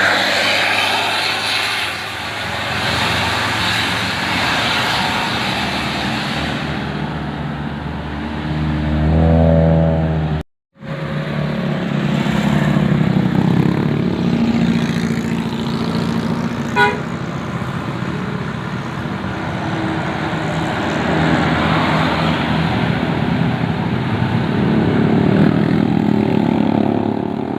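Road traffic with large vehicles, likely buses, driving past. A short horn note sounds about nine seconds in. The sound cuts out for a moment just after it, and there is a single sharp click later on.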